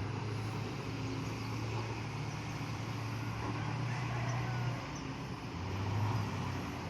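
Heavy engine running with a steady low drone that eases slightly for a moment near the middle.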